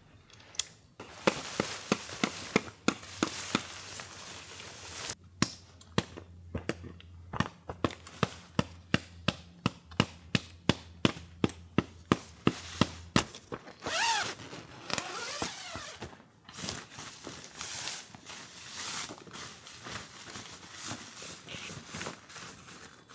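A run of sharp knocks, about two or three a second for several seconds, with more scattered knocks before and after. A brief wavering high tone sounds about fourteen seconds in.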